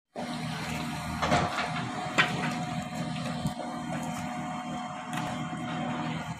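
A motor running steadily with a low hum and a thin steady whine, broken by a few short knocks or clatters.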